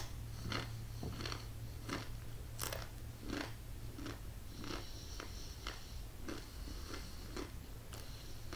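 Chewing a dry, stale Paqui One Chip Challenge tortilla chip: crisp crunches about one and a half times a second, hard going as the stale chip is hard to chew. A steady low hum runs underneath.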